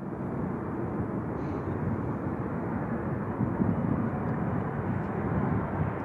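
Jet airliner engines running, a steady noise without clear tones.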